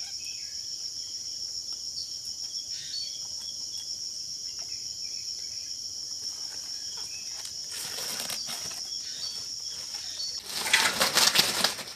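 Steady high-pitched insect chorus. Near the end a loud rustling, scraping noise lasting about a second and a half covers it.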